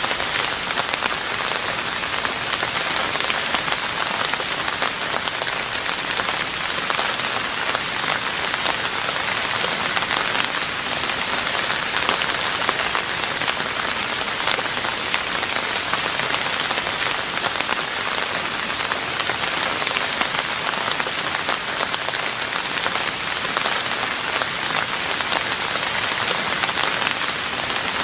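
Steady rain falling on a roof: a dense, even hiss of drops with fine individual patters throughout.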